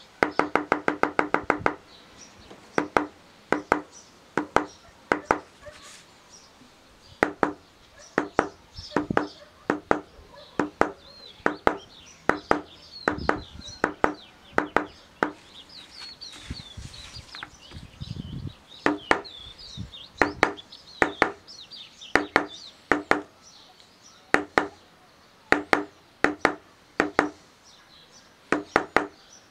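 Mallet striking a metal leather-stamping tool as it is walked along a carved outline in leather: sharp knocks with a short ring. A fast run of about ten taps a second comes first, then taps in twos and threes.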